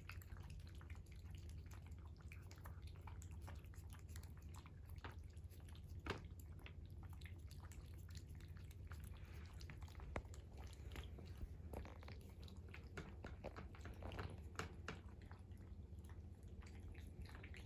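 A cat chewing its food: many faint, irregular little clicks and smacks, with a steady low hum underneath.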